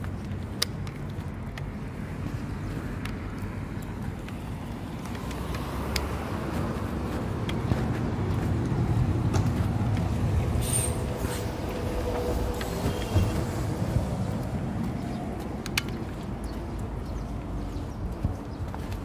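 Road traffic: a low rumble of a vehicle going by, swelling through the middle and easing off again, with a few light clicks on top.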